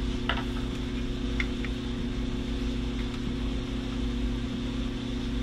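Steady low mechanical hum with a few fixed tones, like a room fan or air-handling unit. About a second in, a few faint clicks of small plastic computer parts and a connector being handled.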